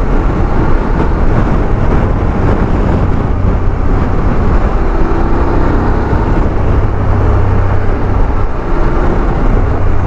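Motorcycle under way at road speed: a steady engine drone under loud wind rush on the microphone.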